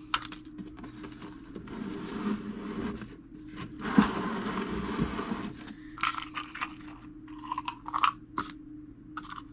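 Hand-working of a fusee clock movement's small brass parts: scraping and rubbing, a sharp click about four seconds in, then several light clicks.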